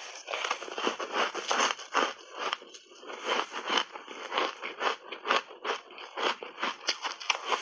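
Close-miked crunching of frozen pink berry shaved ice coated in milk powder, bitten off in a big bite and chewed in rapid, irregular crackly crunches, with a brief pause about three seconds in.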